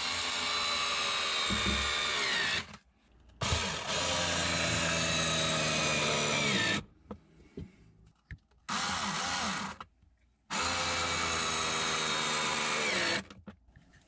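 Cordless drill-driver driving screws into steel drawer slides, running in four bursts of a few seconds each, the third one short. The motor's whine sinks in pitch as each run ends.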